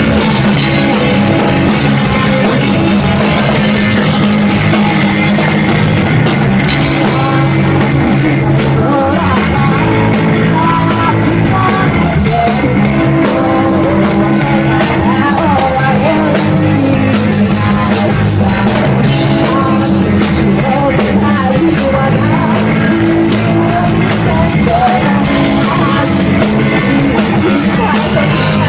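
Live rock band playing loud, with electric guitar, electric bass, drums and a singer.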